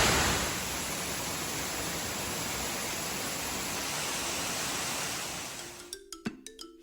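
Lick Creek Falls, a waterfall in good flow, making a steady rush of falling water. It fades out near the end as marimba-like mallet music begins.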